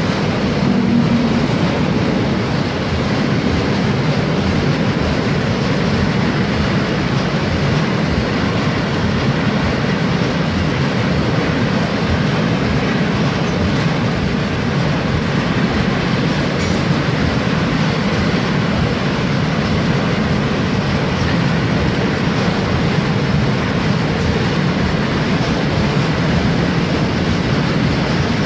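Long freight train of loaded double-deck car-transporter wagons rolling past: a steady, loud noise of steel wheels on the rails that does not let up.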